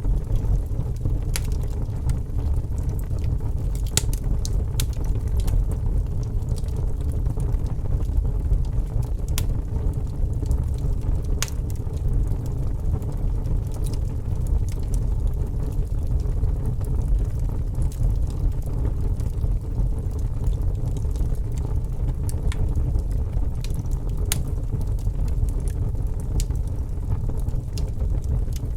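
Wood fire in a fireplace crackling, with scattered sharp pops and snaps over a steady low rumble.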